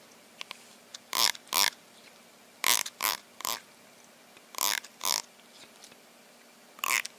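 An animal giving short grunts, nine in all, mostly in pairs about half a second apart, with quiet between the pairs.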